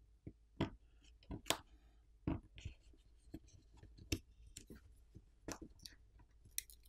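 Light, irregular clicks and scrapes of a plastic pry pick working around a smartphone's plastic camera lens cover, prying it free of the adhesive that holds it down.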